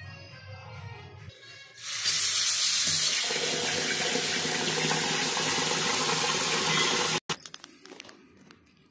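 Tap water pouring into a steel bowl of raw rice, rinsing the grains. The steady splashing starts about two seconds in and cuts off abruptly near the end.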